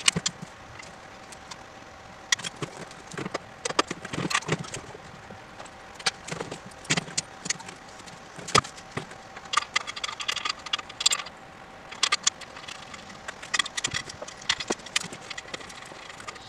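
Irregular metallic clicks and clinks of a wrench and spacers on a motorcycle's rear wheel axle as it is loosened and taken apart, with a few brighter ringing clinks in a cluster past the middle.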